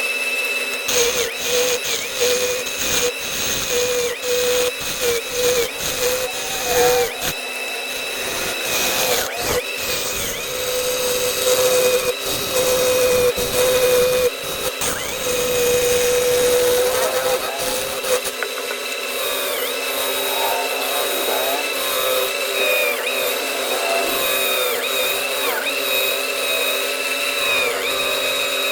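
CNC machine spindle running with a steady high whine whose pitch dips briefly now and then as it takes load while cutting. A rough cutting noise with many small clicks sounds over it and eases off in the last third.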